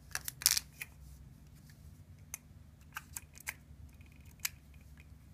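Sharp plastic clicks from handling a GoPro Hero 4 Silver action camera: a quick cluster within the first second, then single clicks every half second or so.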